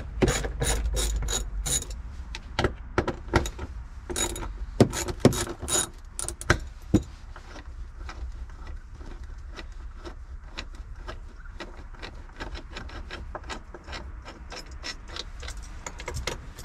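Ratchet with a T40 Torx bit clicking as it loosens the bolts holding down the cargo-floor brackets. Quick runs of clicks come with a few louder knocks in the first several seconds, then give way to finer, quieter clicking.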